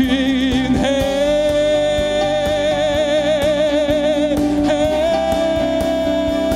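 Live Korean worship song: male and female vocalists singing long held notes with vibrato over acoustic guitar, drums and bass. A new held note begins about five seconds in.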